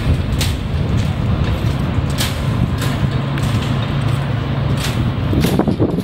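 An engine running steadily with a low hum, under a wash of noise, with sharp ticks or knocks about every half second to second.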